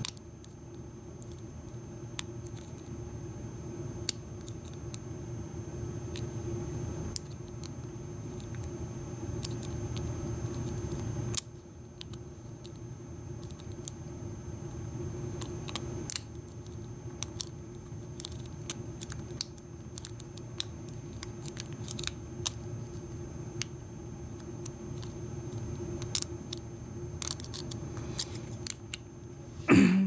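Hook pick clicking and scraping on the pin tumblers of an American 1100 padlock as pins are lifted one by one under tension from a pry-bar tension wrench: scattered small metallic clicks, bunched a little past the middle and again near the end, over a steady low hum.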